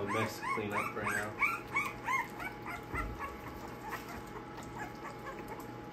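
A litter of nearly three-week-old American pocket bully puppies crying with short, high, repeated whimpers and yips, several at once at first, then thinning out and fading after about three seconds. A soft low thump about three seconds in.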